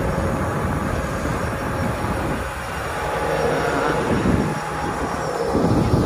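Volvo wheel loader's diesel engine running with a steady low rumble as the machine drives past carrying a heavy load.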